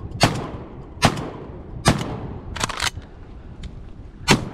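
Shotguns firing a rapid volley of about six blasts in four seconds. Each blast is a sharp report with a short echo, and two of them come close together near the middle.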